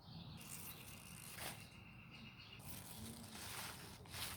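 Mustard green leaves rustling and tearing as they are handled and picked by hand, in several short noisy bursts.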